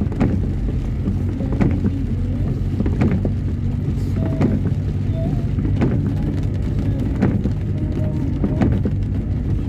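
Inside a car driving in the rain: a steady low rumble of engine and tyres on the wet road, with a sharp click about every second and a half from the windscreen wipers sweeping.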